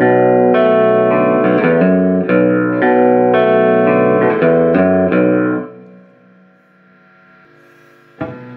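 Squier Paranormal Baritone Cabronita Telecaster, a low-tuned electric guitar with single-coil pickups, playing picked notes and chords through an amp with a bright, harsh treble edge the player calls almost 'ice picking'. About five and a half seconds in the playing stops and the last notes ring out and fade. A single short strum comes near the end.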